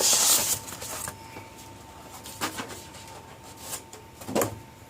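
Packaging and paper rustling as a hoverboard box's contents are handled, loudest in the first half second, with a couple of sharp knocks later on.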